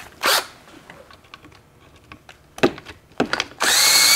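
A few short knocks as the tool is set in place, then near the end a cordless drill spins up with a rising whine, backing out a hex-head tail-housing bolt on an early Borg-Warner T10 four-speed transmission.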